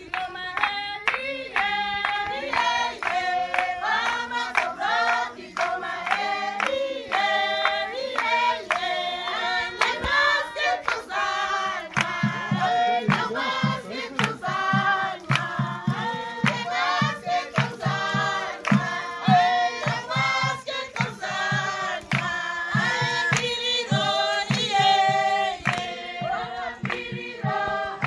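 A group of Damara women singing together in chorus, joined by a steady beat of hand clapping from about twelve seconds in.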